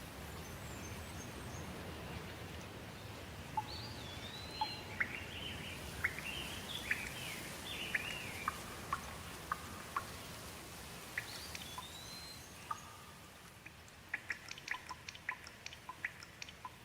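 Steady rain with birds calling over it: a string of short, gliding chirps through the middle. Near the end the rain thins and quick dripping ticks take over.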